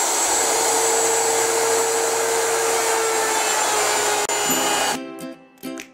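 Handheld wood router running at full speed, trimming the edges of a plywood countertop: a loud, steady motor whine with a second, higher tone over it. About five seconds in it cuts off abruptly and strummed guitar music takes over.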